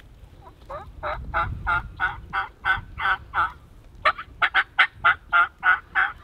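Turkey yelping: two runs of short, evenly spaced yelps, about three a second, with a brief pause about three and a half seconds in; the second run starts with a few quicker notes.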